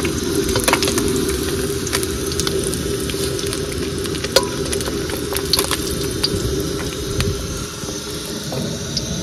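Small fish shallow-frying in hot oil in a wide wok, sizzling steadily. A steel spatula makes scattered sharp clinks and scrapes against the pan as the half-fried pieces are turned and lifted out.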